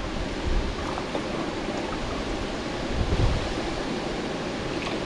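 Steady rush of flowing river water, with low wind buffets on the microphone, strongest about three seconds in.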